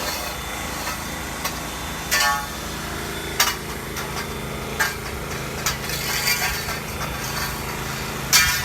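Metal frame-tent poles and fittings clanking and knocking as they are slid and fitted together: several sharp knocks a second or so apart, one ringing briefly about two seconds in. A steady low hum runs underneath.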